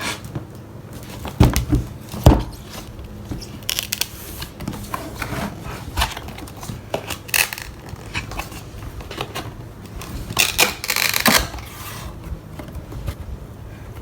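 Packaging of a manga box set being handled and torn open by hand: irregular crinkling, tearing and rustling with scattered knocks, two louder thumps about a second and a half and two seconds in, and a longer burst of rustling about ten to eleven seconds in.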